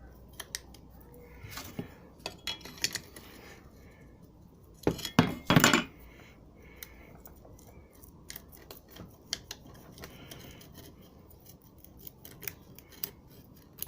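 Small metal clicks, ticks and scrapes of hand tools working a steel retaining ring out of a steering rack housing, with a louder rasping scrape about five seconds in.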